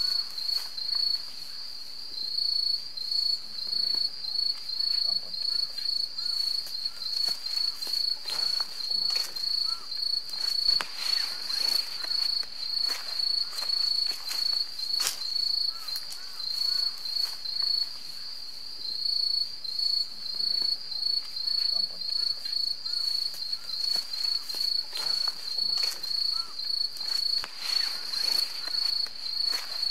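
Insects chirping steadily in a rapid, pulsed high-pitched trill, with occasional faint clicks and rustles.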